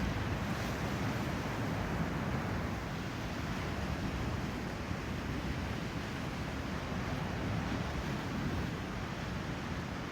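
Ocean surf and wind, with wind buffeting the microphone: a steady rushing noise with no distinct wave crashes.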